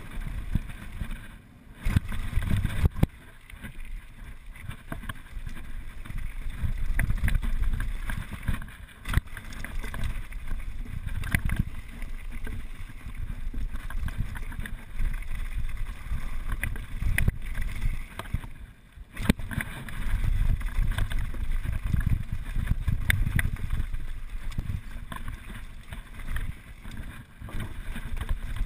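Wind rumbling over a rider-mounted action camera's microphone during a fast mountain bike descent, with tyres on gravel and dirt and frequent sharp clicks and rattles from the bike over bumps. The rumble swells and eases with speed, dropping briefly twice.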